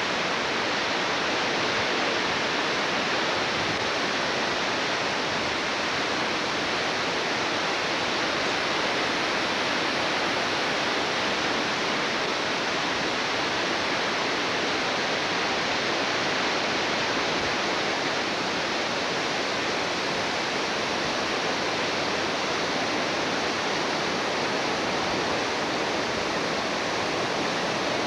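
Steady rushing of a creek in flood, its fast water making an even, unbroken noise.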